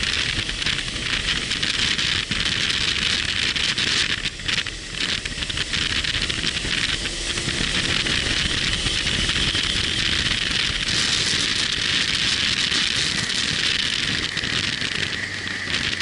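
Wind rushing over the microphone of a motorcycle on the move, a loud steady hiss with road and engine rumble beneath it.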